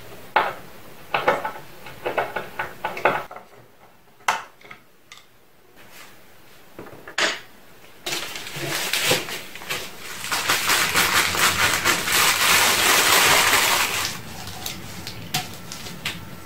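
Crockery and kitchen utensils clinking and knocking as they are handled, a scattering of sharp clicks. About eight seconds in, a continuous rough noise takes over, loudest for a few seconds before easing off.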